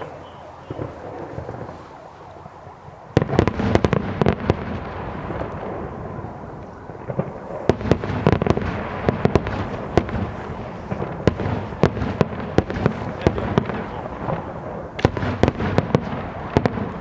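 Fireworks display: after a few quieter seconds, a sudden barrage of rapid bangs and crackling pops begins about three seconds in and keeps going, with a dense flurry of sharp reports near the end.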